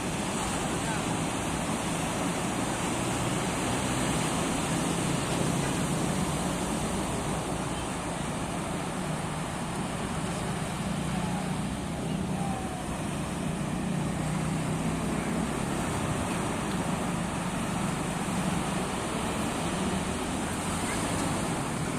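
Steady wash of sea surf and wind, with a low hum of road traffic underneath.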